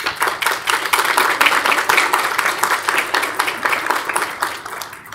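Audience applauding, many hands clapping at once; it starts suddenly and dies away near the end.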